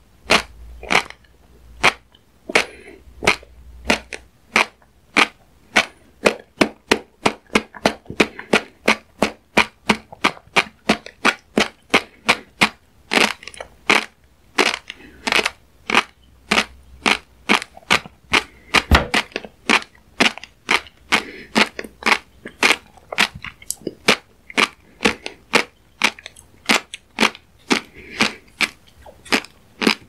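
A person making sharp clicking sounds with the mouth, repeated in a steady run of about two a second, quickening to about three a second after the first several seconds.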